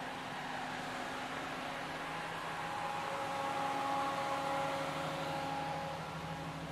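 Steady mechanical hum of street traffic and machinery, with a few faint held tones, swelling slightly about four seconds in.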